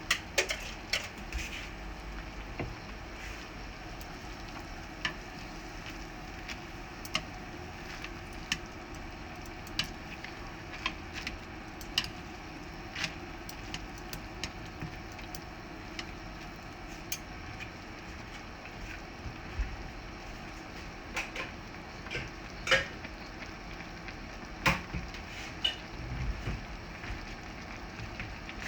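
Kitchen cooking sounds: a steady hiss of a stove with scattered clicks and clinks of utensils against a pot or pan, the sharpest clink about 23 seconds in.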